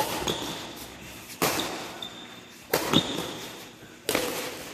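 Badminton rackets striking a shuttlecock back and forth in a rally: four sharp hits about a second and a half apart, each followed by a short echo.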